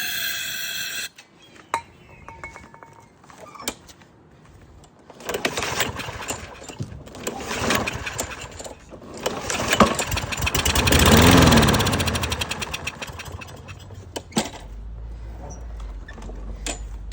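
Lawn Boy push mower's small engine pulled over, then catching and running for several seconds on fuel squirted into the carburetor, revving up once and then dying out. Running only on a prime points to a fuel-delivery fault in the carburetor, which the owner takes to need a proper ultrasonic cleaning.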